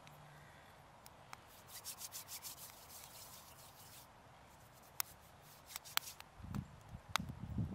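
Hands being rubbed briskly together, a quick run of dry rubbing strokes, followed by a few sharp clicks and low rumbles near the end.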